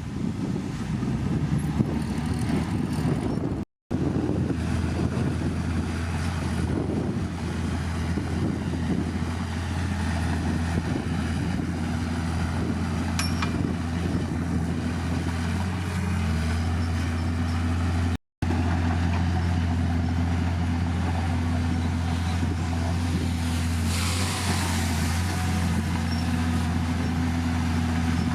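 Heavy diesel engine of an earthmoving machine running steadily under load, its pitch dipping briefly a couple of times. The sound cuts out for a split second twice.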